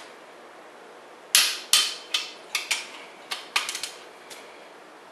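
Click-type torque wrench with a ratchet head working on the main bearing cap stud nuts, in the step up to 80 ft-lb. A run of sharp, irregularly spaced metallic clicks starts about a second and a half in.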